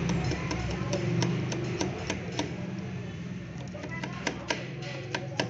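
Small sharp metal clicks and taps, a few a second at uneven spacing, from hands and a tool working at the rotary hook of a Juki DDL-5550 lockstitch sewing machine while its play against the needle is set; the clicks grow sharper near the end, over a steady low hum.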